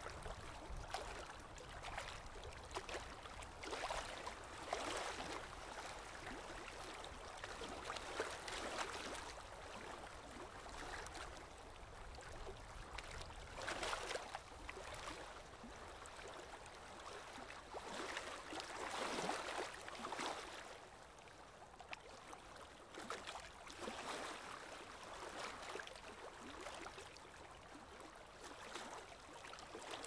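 Lake water lapping gently, soft splashing that swells irregularly every few seconds.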